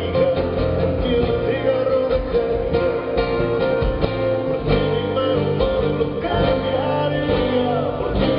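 Live band music with guitar and a singing voice, a song being played through at a soundcheck.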